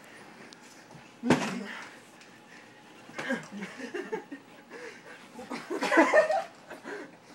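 Pillow fight: a sudden thump about a second in as a swung pillow lands, then men laughing and calling out, loudest about six seconds in.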